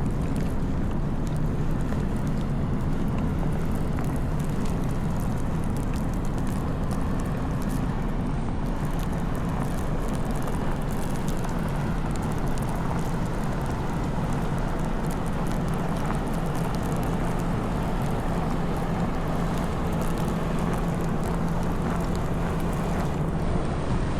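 Snowstorm wind buffeting the microphone as a steady rumbling noise, mixed with the low drone of city street traffic.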